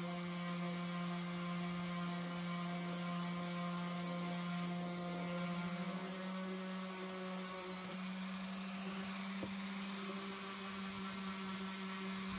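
Electric sander motor running with a steady hum, its pitch stepping up slightly about halfway through.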